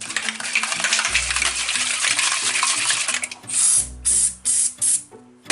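Aerosol can of DuPont grease spraying: one long hissing spray, then four short squirts.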